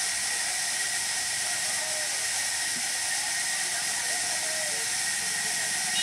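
A steady, even hiss with a faint constant high tone running through it.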